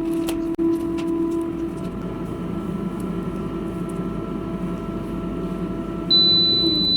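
Nutricook Air Fryer 2 running its preheat cycle, the fan and heater giving a steady hum. About six seconds in, a steady high electronic beep sounds, signalling that preheating has finished.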